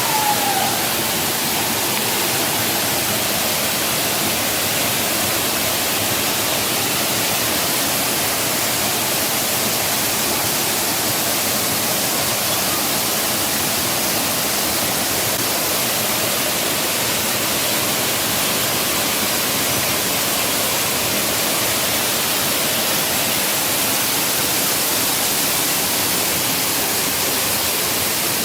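Waterfall rushing: a steady, unchanging hiss of falling water.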